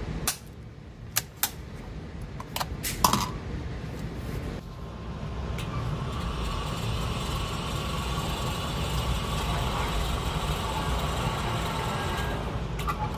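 A few sharp metallic clicks and knocks in the first three seconds. Then, from about five seconds in, the steady whir of an indoor range's motorized target carrier running the paper target back along its overhead track.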